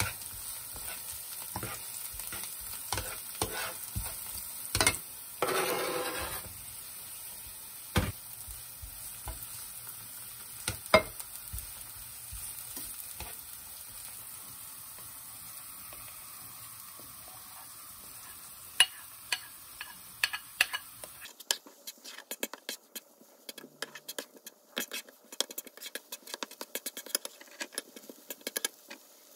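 Chopped green onions and then mushrooms sizzling in oil in a nonstick frying pan, stirred with a plastic spatula that clicks and scrapes against the pan. About two-thirds of the way through, the steady sizzle drops away and a quicker run of spatula taps and scrapes follows as egg fried rice is stirred.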